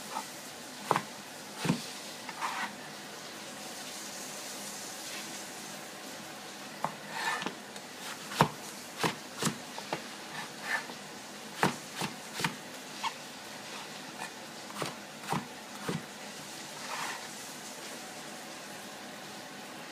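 Chinese cleaver chopping eggplant on a cutting board. A few single chops come first, then a pause of a few seconds, then a run of about fifteen chops, roughly two a second. The chopping stops a few seconds before the end.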